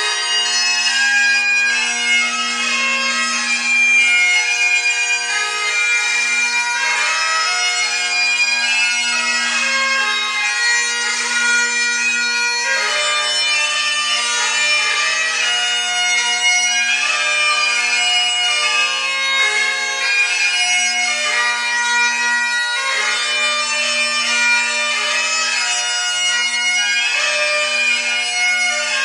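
Great Highland bagpipe playing a tune: the chanter's melody moves over the steady, unbroken sound of the drones.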